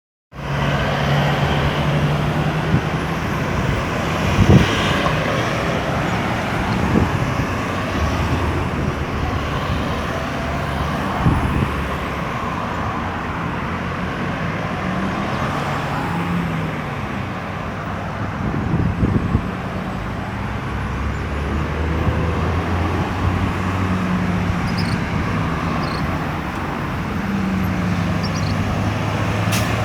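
Steady road traffic at a busy roundabout: vehicle engines running and passing, their notes sliding up and down as vehicles slow and pull away, with a few brief knocks.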